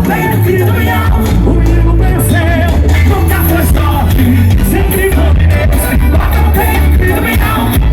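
Live forró band music with a heavy, steady bass beat and a wavering melodic line over it.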